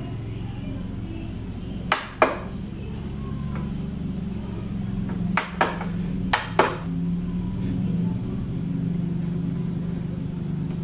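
Three pairs of short, sharp taps or clicks, the two taps of each pair a fraction of a second apart, the first pair about two seconds in and the other two close together a few seconds later, over a steady low hum.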